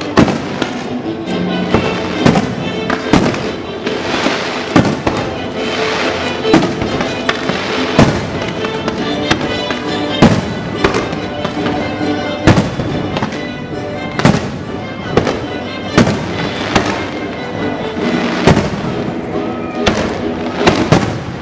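Aerial fireworks shells bursting in a string of sharp bangs, roughly one a second, over music with sustained tones playing throughout.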